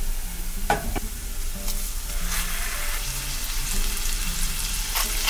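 Chopped onion, garlic and chili pepper sizzling in oil in a nonstick frying pan, with a spatula scraping them to one side about a second in. The sizzling gets louder from about two seconds in as a block of raw ground beef is laid into the hot pan to sear.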